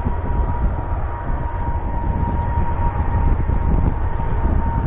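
Jet airliner taking off across the airfield: a steady low rumble with a thin steady whine that fades near the end, mixed with heavy wind buffeting on the microphone.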